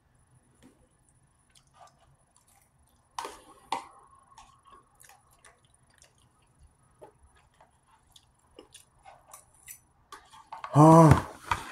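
Eating sounds: quiet chewing and lip smacking with light clicks of a metal fork against a plastic food tray, two sharper clicks about three seconds in. Near the end comes a short loud hummed 'mmm' of enjoyment.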